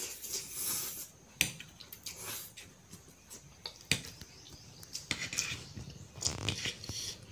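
A person slurping and chewing Maggi instant noodles eaten with a fork, the fork clinking sharply against the plate twice, about one and a half and four seconds in.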